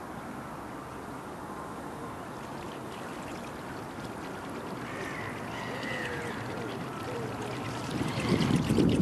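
Homemade buzzbait being retrieved across the water surface, its spinning blade churning and gurgling the water steadily. A louder low rumble comes in near the end.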